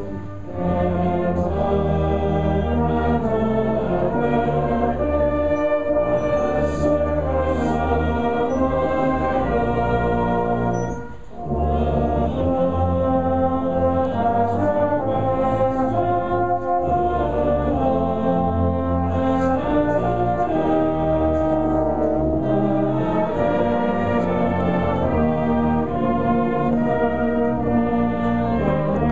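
A brass band playing a slow hymn tune in sustained, slowly changing chords. The music drops briefly between phrases just after the start and again about eleven seconds in.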